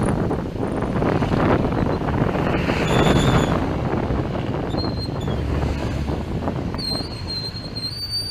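Motorcycle tricycle riding through rain, a steady rumbling mix of motor, road and wind noise. Near the end a high, steady squeal sets in, from the tricycle's brakes.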